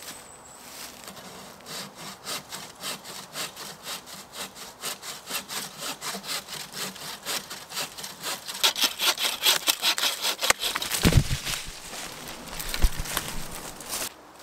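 Wooden-framed bucksaw cutting through a small standing tree, with quick, even back-and-forth strokes that grow louder and faster. About eleven seconds in there is a heavy low crack and thud as the cut goes through, and a second thud a couple of seconds later.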